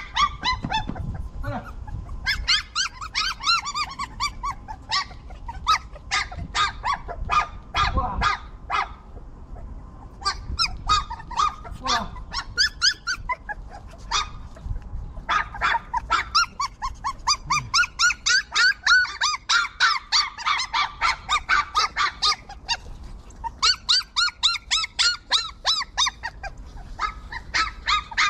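Puppies yelping and whimpering in long runs of short, high-pitched cries, several a second, broken by short pauses.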